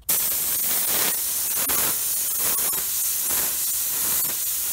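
Compressor-fed gravity-feed paint spray gun hissing as it sprays paint, starting abruptly. The hiss swells briefly about once a second.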